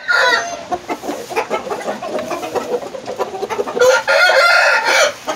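Roosters crowing and clucking: a loud call right at the start, short clucking calls through the middle, and one long crow of over a second near the end.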